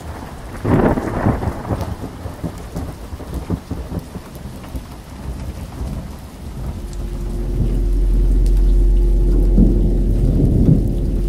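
Thunderstorm: steady rain with a rumble of thunder about a second in. About two-thirds of the way through, a low steady drone and a held tone come in and the sound grows louder.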